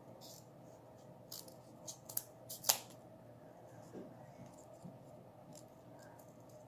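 Scissors snipping a small piece of cardboard: about five short, sharp snips in the first three seconds, the loudest near the three-second mark, then a few fainter clicks of the blades.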